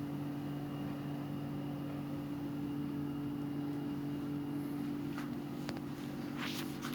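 Steady low electrical hum, with a few light clicks and a short rustle near the end.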